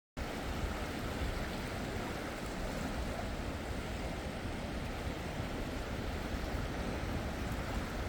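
Sea surf washing steadily on a beach, with wind rumbling on the microphone; it cuts in suddenly right at the start.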